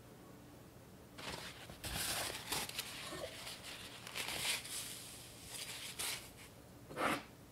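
Irregular rustling and scraping kitchen handling sounds: a string of short, noisy strokes starting about a second in, the loudest one near the end.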